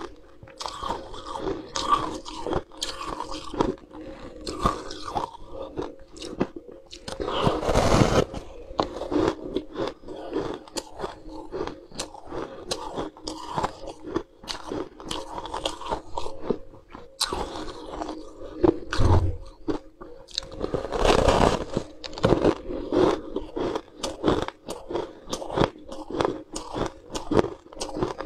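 Frost-covered ice blocks being bitten and chewed close to the microphone: a dense run of crisp, irregular crunches, with a few heavier bites standing out.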